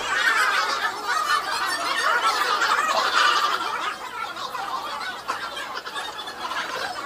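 Several people laughing and chattering over one another in a busy, cackling jumble.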